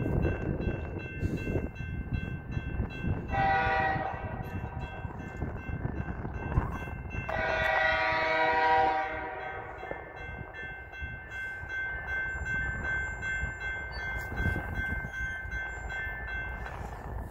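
Approaching diesel locomotive's air horn sounding for a grade crossing: a short blast about three seconds in, then a longer one about seven seconds in. Underneath, a crossing-signal bell rings steadily.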